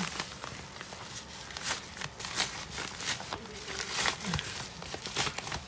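A yellow padded mailer envelope crinkling and rustling as it is handled and opened, with many small irregular crackles.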